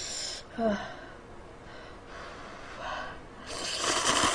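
Cup-ramen noodles slurped from chopsticks: one loud slurp of about a second near the end, after a shorter breathy slurp or blow at the start.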